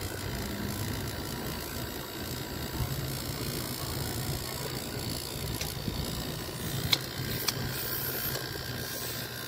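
Panasonic inverter outdoor unit's R32 compressor running with a steady low hum while it pumps the system down, drawing under one amp. A few sharp clicks come in the second half.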